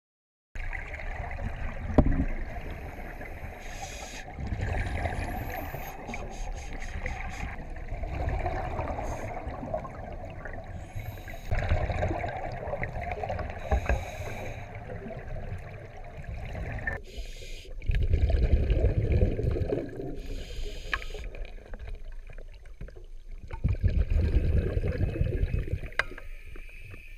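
Scuba divers breathing on their regulators underwater: a loud burst of exhaled bubbles every few seconds over a steady background hiss.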